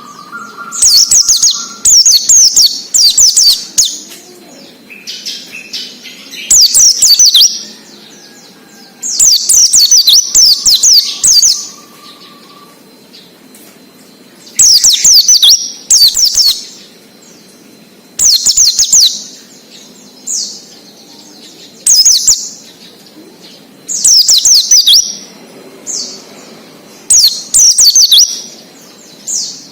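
Pleci (Zosterops white-eye) singing in the 'ngalas' style: repeated bursts of fast, high-pitched twittering, each a second or two long, coming every few seconds with short pauses between.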